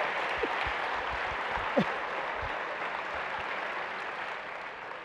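Live audience applauding and laughing after a punchline, the clapping slowly fading toward the end.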